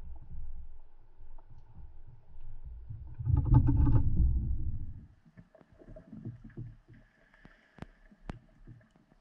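Underwater water movement heard through a camera housing: a muffled low rumble that swells into a louder churning surge about three seconds in, as sand is kicked up off the seabed, then drops away to near quiet with a few sharp clicks near the end.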